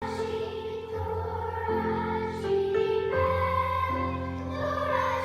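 A chorus singing held notes, moving to a new pitch about every second.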